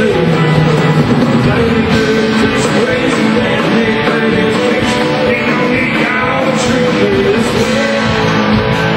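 Country band playing live at full volume: electric guitars over drums, with a lead melody line moving up and down.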